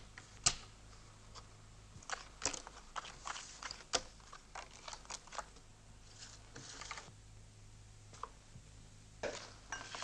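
Playing cards being dealt and laid down on a wooden tabletop: a string of irregular light snaps and flicks with a few short papery rustles, over a faint steady low hum.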